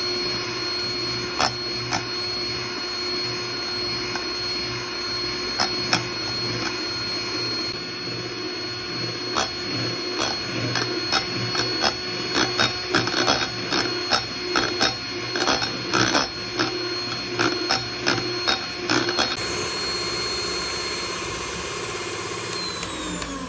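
Electric hand mixer running steadily with a high whine, its twin beaters whipping eggs and sugar in a glass bowl to a thick, ribbony stage. In the middle stretch there are many sharp clicks of the beaters knocking against the glass, and near the end the motor winds down as it is switched off.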